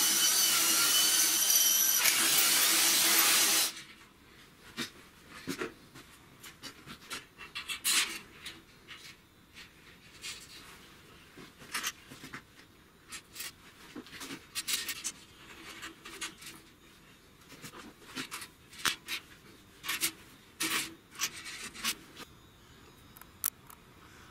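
Cordless drill running steadily as it enlarges a hole in a metal windmill-tower leg, stopping suddenly about four seconds in. After that come scattered light clicks and knocks.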